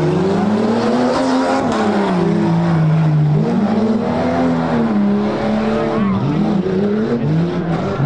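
Off-road competition truck's engine revving hard. Its pitch climbs and drops again every second or so, with a few longer holds.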